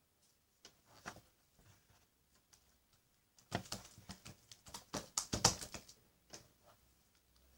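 Clear slime being squished and played with: a run of small sticky clicks and pops, sparse at first and busiest from about three and a half to six seconds in.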